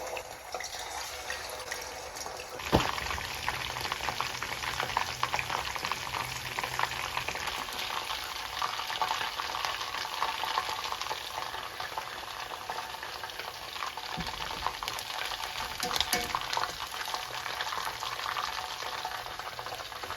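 Food frying in hot oil in a pan, crackling and sizzling steadily while being stirred. A sharp knock comes about three seconds in, after which the sizzling grows louder.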